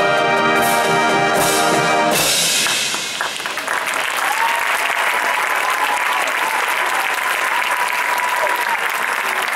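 Marching band holds its final brass chord, with cymbal crashes, and cuts off about two seconds in: the end of the show. The crowd then applauds and cheers, with one long whistle through the clapping.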